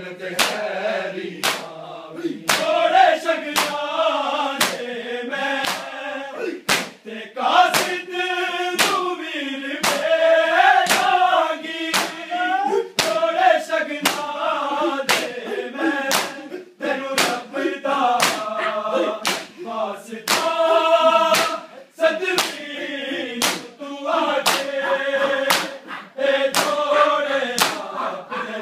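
A large group of men chanting a mourning lament (noha) in unison while beating their chests in time, each beat a sharp slap a little more often than once a second.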